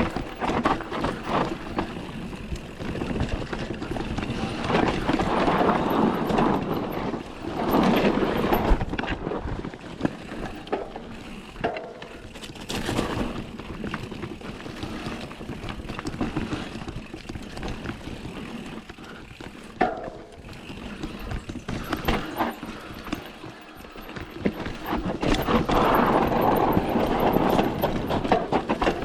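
Mountain bike riding down a rough dirt trail: tyres on dirt and rock with the bike clattering and rattling over the bumps, the noise swelling and fading as it goes.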